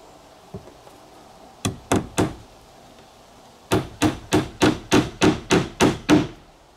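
Claw hammer driving finishing nails into a wooden trim strip on a plywood drawer frame: three light taps to set a nail, a pause, then a steady run of about ten blows, roughly four a second.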